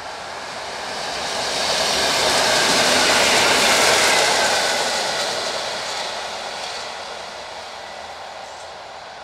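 Electric passenger train passing close by: a rushing noise of wheels on rails that swells to a peak about three to four seconds in, then fades as the train moves away.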